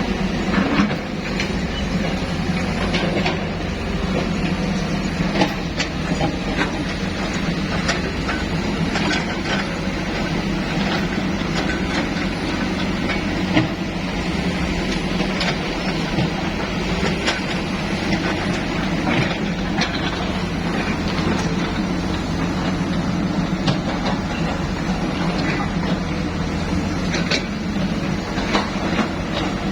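Heavy construction machine's engine running steadily, with scattered clanks and knocks throughout.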